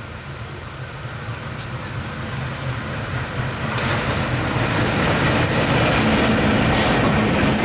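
Diesel locomotive hauling a long passenger train through a station without stopping. Its engine drone and the rumble of wheels on rail grow steadily louder as it approaches, and from about four seconds in the wheel and rail noise of the locomotive and coaches passing close fills in.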